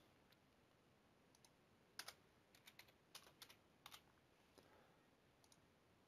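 Near silence broken by a few faint, short clicks from a computer mouse and keyboard, clustered between about two and four seconds in.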